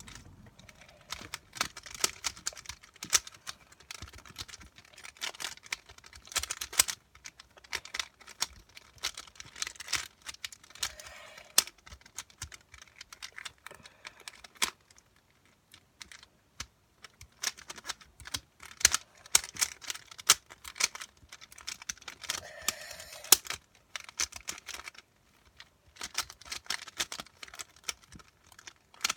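Rapid plastic clicking and clacking of a puzzle cube's layers being turned by hand during a solve, in fast runs broken by short pauses three times.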